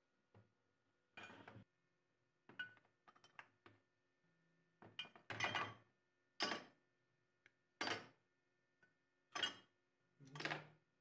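Iron parts of an antique meat grinder clinking and knocking as they are set down one after another into a plastic tub and against each other with pliers: about eight separate, irregular clinks, the louder ones in the second half.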